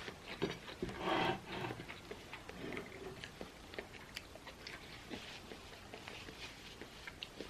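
Close-up eating sounds: chewing and smacking with many small wet mouth clicks, and a louder burst about a second in.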